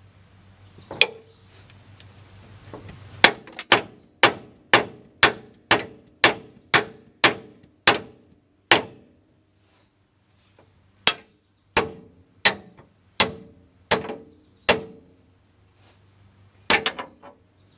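Hammer blows on a steel pickle fork (ball-joint separator) driven into a steering-linkage joint to pop the tapered stud loose. Sharp metallic clanks with a short ring: one, then a run of about a dozen at roughly two a second, a pause of a couple of seconds, six more, and a quick pair near the end.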